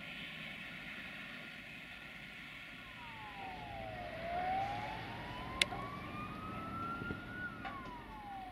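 A siren wailing: its pitch drops, climbs slowly for a few seconds, then drops again, over a steady background hum. A single sharp click comes about halfway through.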